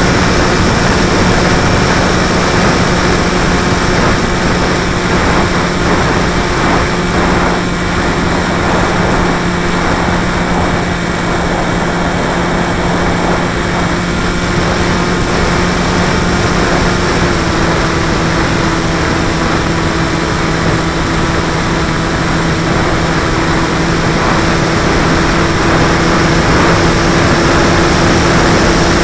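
Electric motor and propeller of a battery-powered radio-controlled aircraft, heard through its onboard camera: a steady hum over a rush of air noise, dropping slightly in pitch about 17 seconds in.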